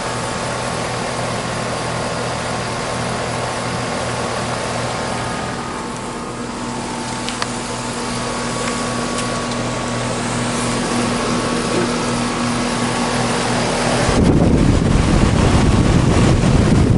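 Carrier Performance 16 central air conditioner condensing unit running: a steady whoosh from the condenser fan over a constant compressor hum. About fourteen seconds in, a louder low rumble of air buffeting the microphone starts.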